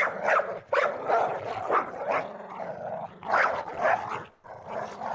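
A dog barking repeatedly, a short bark about every half second, with a brief pause about halfway through.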